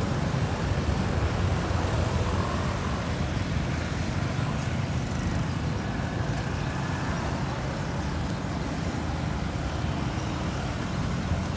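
Street traffic: motorbikes and cars running along the road, a steady low rumble without any single standout event.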